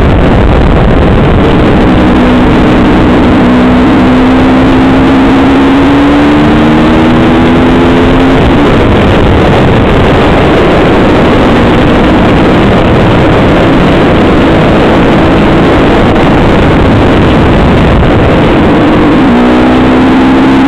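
Motorcycle engine under way, heard through heavy wind rush on the microphone. The engine note rises steadily as the bike accelerates from about two seconds in until about eight seconds, then falls away. A new rising note starts near the end.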